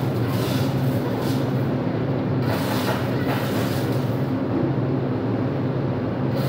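Steady low machine hum with repeated rasping bursts as a fish scaler is worked over whole fish, scraping off the scales.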